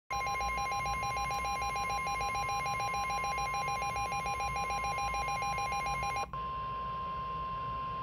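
NOAA Weather Radio receiver sounding a severe thunderstorm warning alert: the steady 1050 Hz warning alert tone plays throughout, with the receiver's own rapidly pulsing alarm beeps layered over it until about six seconds in, when the beeping stops and the plain tone continues.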